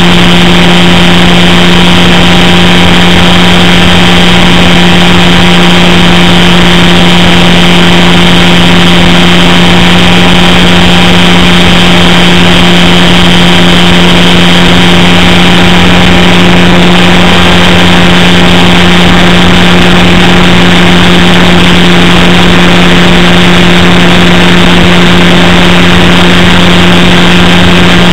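Electric motor and propeller of an RC Super Cub LP floatplane, heard from a camera on the plane in flight. It makes a loud, steady drone at an unchanging pitch, with a high whine on top and rushing air noise.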